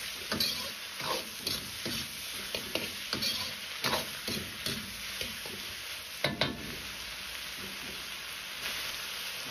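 Stir-frying in an iron wok: a metal wok ladle scrapes and turns potato slices, onion and peppers in quick strokes over a steady sizzle. The stirring stops about two-thirds of the way through, leaving only the sizzle.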